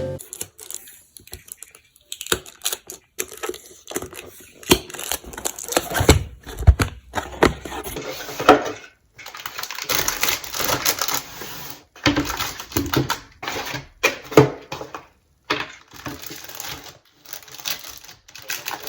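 Hands handling small hard objects: a run of irregular clicks, taps and rustles, broken by a few brief silent gaps.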